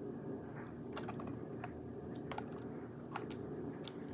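Quiet clicks of a new game controller's buttons being pressed, a handful of scattered presses.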